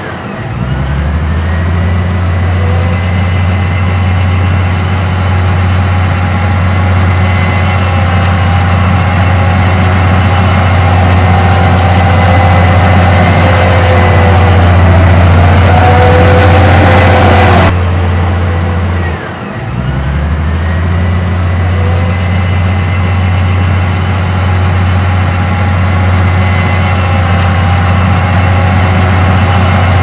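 Crawler bulldozer's diesel engine running loud and steady under load. It dips briefly twice, just after the start and about two-thirds of the way through, and each time picks back up with a whine rising in pitch.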